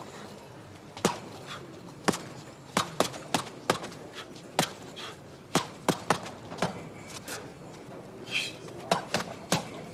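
Boxing-glove punches smacking against a training partner's held-up hands: a run of about a dozen sharp slaps, irregular, one or two a second.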